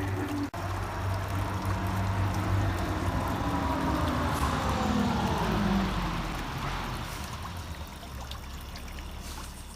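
Water pouring and trickling into a small garden pond from spitter fountains, a steady splashing that fades out at the end. A few faint gliding tones sound over it, and the sound cuts out briefly about half a second in.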